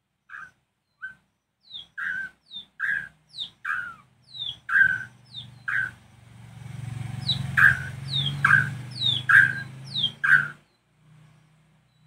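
White-rumped shama calling: a long string of short, sharp, repeated notes, each a quick downward slur, about two a second, with a brief pause midway and stopping shortly before the end.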